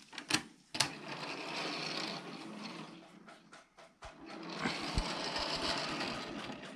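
Plastic Lego train wheels, the new all-plastic Lego axles and BlueBrixx wheels, rolling along plastic Lego track with a steady rolling rattle. The rattle comes in two stretches, with a short break about three and a half seconds in and a few light knocks as it starts again.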